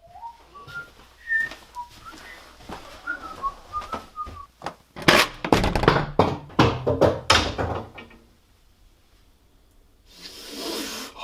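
A person whistling a wandering tune, followed by a run of loud knocks and clattering, and a rising hiss near the end.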